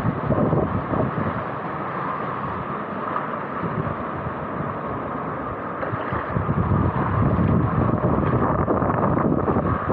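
Wind buffeting a small action camera's microphone in gusts, easing a little in the middle and picking up again in the second half.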